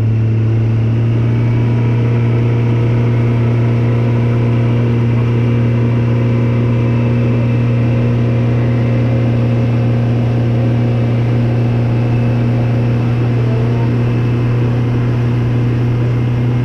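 Boat's outboard motor running steadily at cruising speed, a constant low drone over rushing wind and water.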